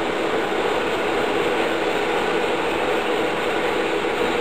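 Steady machinery hum with an even hiss and a faint low drone, unchanging throughout, from equipment running on and around the CNC router.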